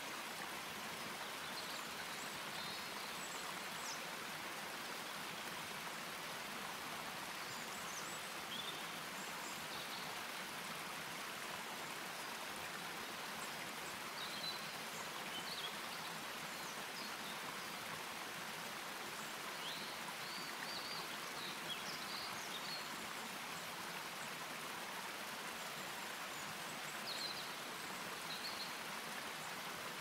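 Forest stream running over mossy rock ledges in small cascades, a steady rush of water. High songbird chirps break in now and then.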